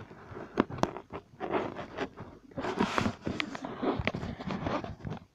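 Irregular clicks, taps and scraping rustles as a handheld phone camera is moved and rubbed against the wire bars of a guinea pig cage.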